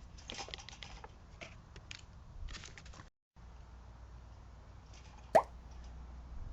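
Scattered light clicks and taps for the first three seconds, then, after a brief dropout, a single short sharp pop about five seconds in, the loudest sound.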